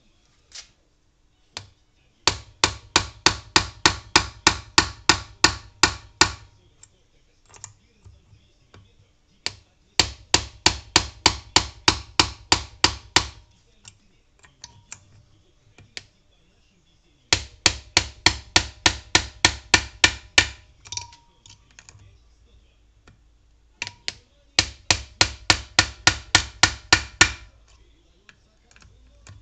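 Quick metallic hammer taps in four runs of about four to five blows a second, each run lasting a few seconds, every blow ringing briefly.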